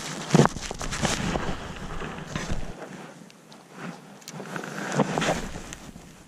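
Wind rumbling on the microphone, with rustling and knocks. The loudest is a sharp knock about half a second in; the rumble drops away about halfway through.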